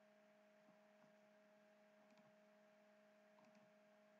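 Near silence: a faint steady electrical hum from the recording setup, with a few very faint ticks.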